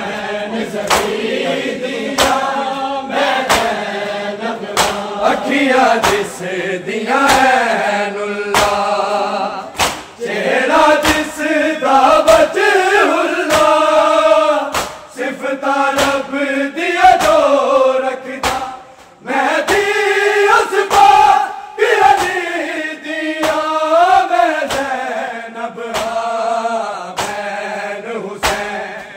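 Male voices chanting a Punjabi noha in unison, a mourning lament, with the crowd joining in. Under it runs a steady beat of sharp hand slaps, the mourners' chest-beating (matam) keeping time.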